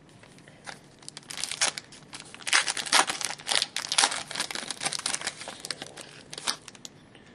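Foil wrapper of a Panini Luxury Suite hockey card pack being torn open and crinkled by hand. It is a dense run of crackles that starts about a second in, is loudest in the middle and dies away near the end.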